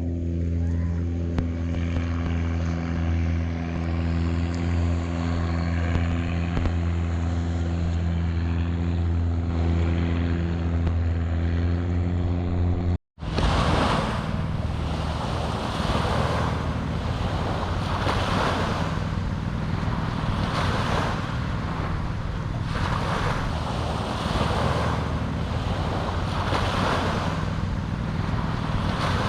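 Long-tail boat engine running steadily at low revs. After an abrupt cut about thirteen seconds in, small waves wash onto the beach in repeated swells every couple of seconds, with wind on the microphone and a fainter engine hum underneath.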